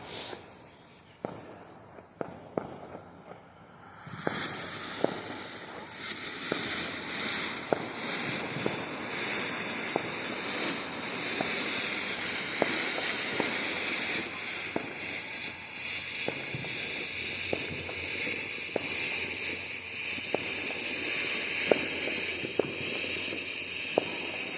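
Consumer firework going off after its fuse is lit. Scattered crackling pops at first, then from about four seconds in a steady hiss of sparks with crackles popping through it.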